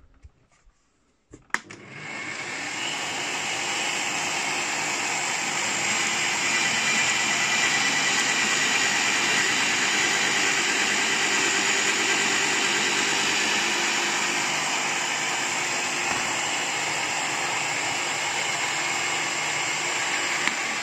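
Parkside PTBM 710 A1 bench drill press switched on with a click about a second and a half in, then its motor runs steadily at medium speed while the wood bit is fed down into a piece of wood.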